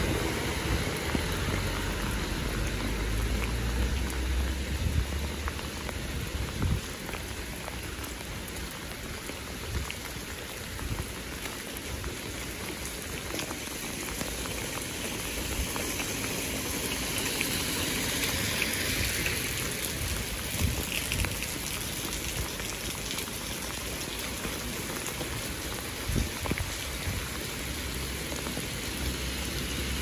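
Steady rain falling on wet pavement and puddles. A low rumble of cars passing on the wet road rises near the start and again near the end.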